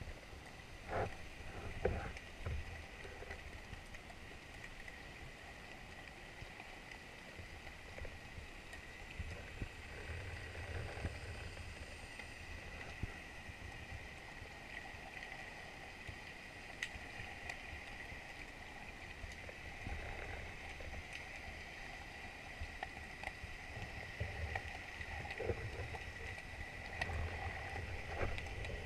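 Muffled underwater sound picked up through a GoPro's waterproof housing while a diver swims over kelp: patches of low rumbling water movement, scattered faint clicks, and a thin steady high whine throughout.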